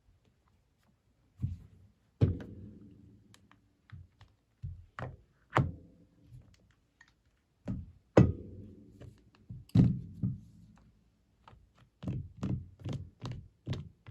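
Smartphone ringtone made of knocks and thuds, the biggest hits trailing off in a low ringing tone. The hits come unevenly at first, then in a quicker run of two or three a second near the end.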